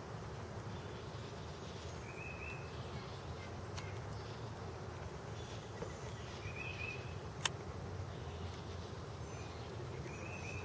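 Honeybees buzzing steadily around an open Warre hive as package bees are installed. A short bird chirp comes every few seconds, and there is one sharp click about seven and a half seconds in.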